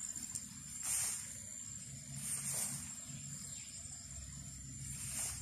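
Insects, crickets by the sound of it, trilling steadily in a thin, high tone, with three brief hissy swells about a second in, midway and near the end.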